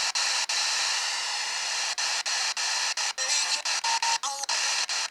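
Weather radio receiver hissing with static on a weak signal, the hiss broken by many short dropouts, with faint snatches of a voice or tone about three and four seconds in.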